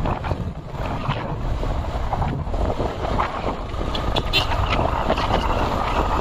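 Wind buffeting the microphone: a dense, continuous low rumble broken by crackling gusts.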